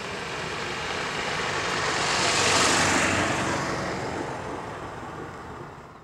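A vehicle passing by: a rushing noise swells to its loudest about two and a half seconds in, then dies away.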